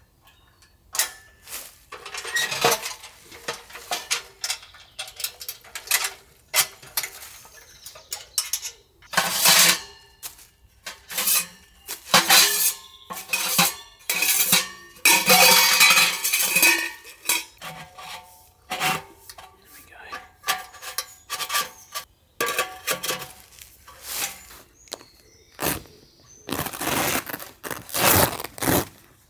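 Metal clanking and clinking as a small portable steel wood stove is put together by hand, its parts and fold-out wire side racks knocking and scraping in irregular bursts. Near the end, a few louder rasping bursts as the fabric stove-jack flap on the tent is pulled open.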